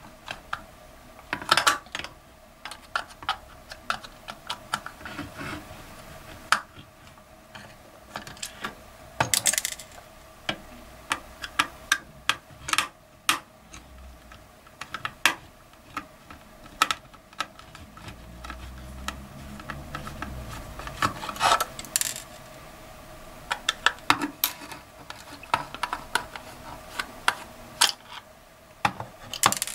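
Irregular clicks, taps and clinks of a plastic timer-socket housing being opened and handled, with its circuit board and small metal screws knocking against the desk.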